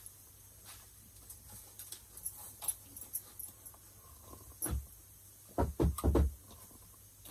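Scattered small knocks and clicks of kitchen handling, with one dull thump a little under five seconds in and a quick cluster of louder dull thumps about a second later.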